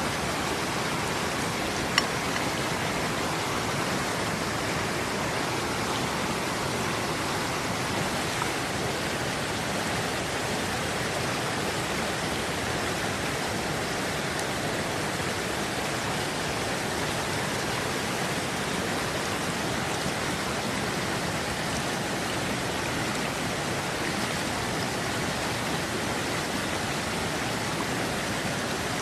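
Steady rush of running water, with one sharp click about two seconds in.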